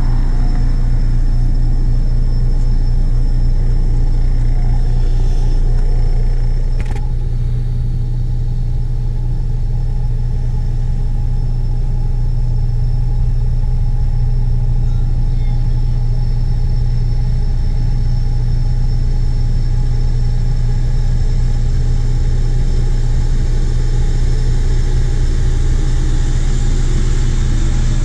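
Hamm 3520 padfoot roller compactor's Deutz six-cylinder turbo-diesel running steadily under working load, a continuous low drone.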